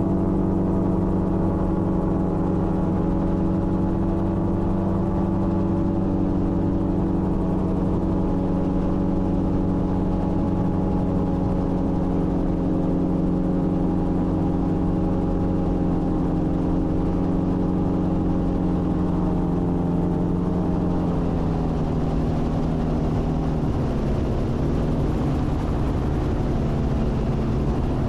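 Gyroplane's piston engine and pusher propeller running steadily in flight, its pitch dropping noticeably about three-quarters of the way through as the throttle is eased back.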